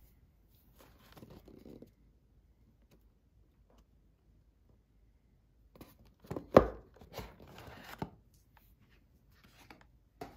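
A cardboard gift box being opened: a faint rustle, then a cluster of sharp knocks and scraping a little past halfway through as the lid is gripped and lifted off.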